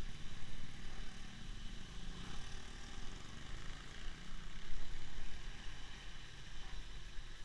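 Car engines running at low speed close by, a steady low rumble as vehicles ease past.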